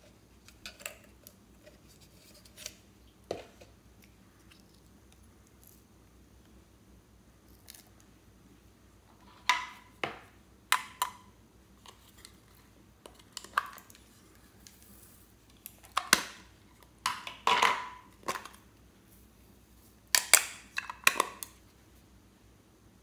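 Small hard plastic toy containers being handled and opened: scattered sharp plastic clicks and taps, sparse at first, then in louder clusters through the second half.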